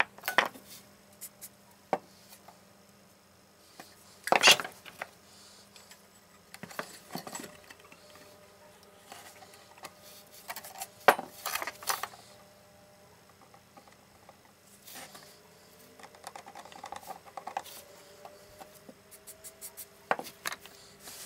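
Irregular clicks, knocks and clatter of hard objects being handled and set down, with louder clatters about four and eleven seconds in.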